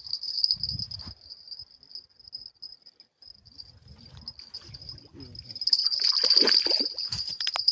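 Crickets chirring in a steady high trill; a little over halfway in, about two seconds of water splashing as a hooked carp thrashes at the surface.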